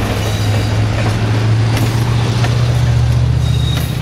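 Passenger train cars rolling past close by: a loud, steady low hum over a continuous rolling noise, with a few sharp clicks.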